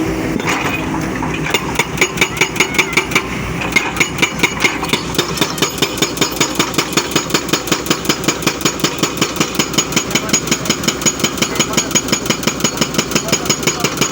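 Excavator at work, its diesel engine running, with a rapid, very regular pounding of about five blows a second that starts about a second and a half in.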